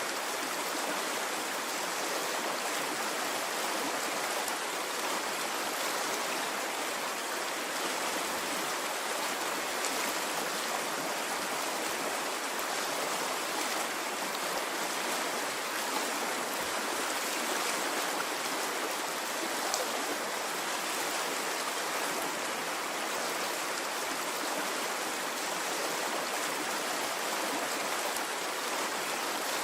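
Stream water flowing steadily: an even, constant rush, with a few small splashes here and there.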